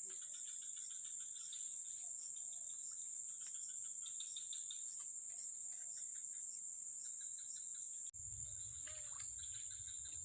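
A steady high-pitched insect chorus of crickets or cicadas, with short pulsed chirping calls over it. About eight seconds in the sound drops out for a moment and a low hum joins it.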